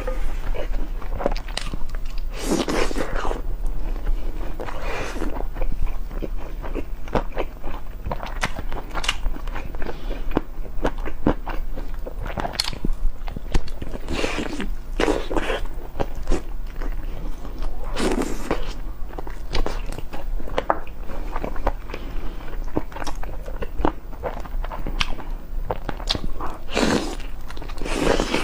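Close-miked eating: a person biting and chewing braised chicken drumettes, with many small wet mouth clicks and a louder smacking bite every few seconds.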